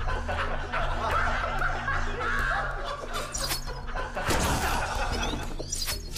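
A person laughing in repeated short bouts over low, droning background music, with a few sharp knocks and a rushing noise in the last couple of seconds.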